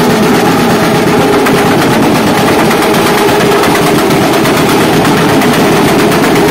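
Several motorcycle engines, including a Suzuki sport bike's, running loudly and steadily at a standstill, a dense rapid rattle of exhaust pulses with no clear revving up or down.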